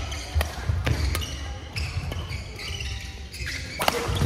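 Badminton doubles rally: several sharp racket hits on the shuttlecock, with shoes squeaking and feet thudding on the court floor.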